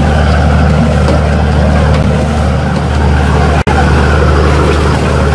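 Fishing boat's engine running steadily with a deep hum, cut by a very brief dropout a little over three and a half seconds in.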